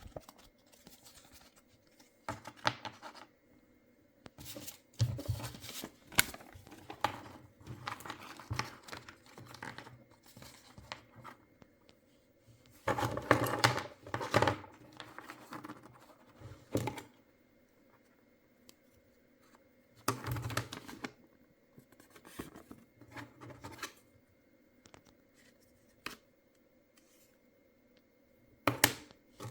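Packaging of a giant chocolate egg being opened by hand: irregular bursts of cutting, tearing and rustling with small handling knocks, the longest and loudest stretch about halfway through.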